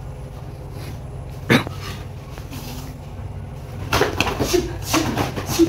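Sharp slaps and thuds of bare feet and blows during silat sparring on foam mats: one loud hit about a second and a half in, then a quick flurry of hits near the end.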